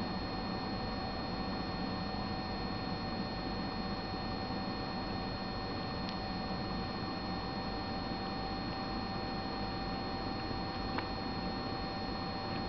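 Steady electrical hum and hiss with a constant high whine, broken only by one or two faint ticks.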